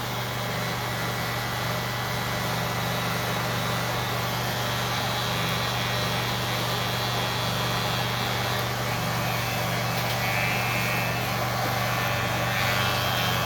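Electric hair clipper running with a steady low hum, its freshly sharpened blade in use.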